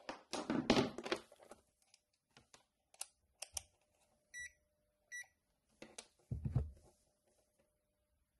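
Digital multimeter giving two short, high beeps less than a second apart as it is handled and readied for measuring. Around them come rustling and knocks of handling on the workbench, with a dull thump about six seconds in.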